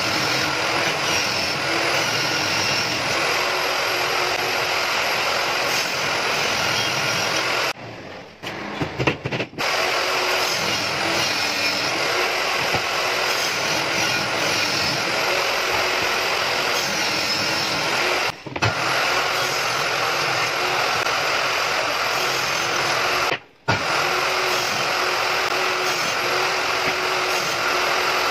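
Table saw running and ripping white laminated board, a steady whine with the rush of the blade through the board. The sound drops out briefly three times.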